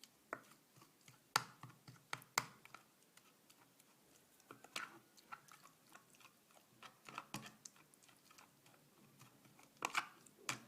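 A thick, sticky mixture of grated ginger, honey, butter and egg yolk being stirred by hand with a utensil: irregular soft clicks and scrapes, louder taps a little past a second in, twice around two seconds in, and a cluster near the end.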